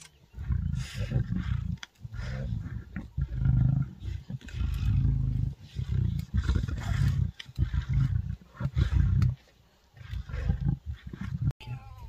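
Lions growling as they feed at a kill: a run of low, rough growls in bursts of about half a second to a second with short gaps, pausing briefly near the end, then a few more.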